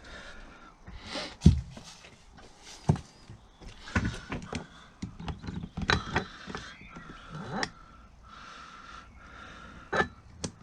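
Irregular knocks and clicks, as of tools and metal parts being handled. The loudest knock comes about one and a half seconds in.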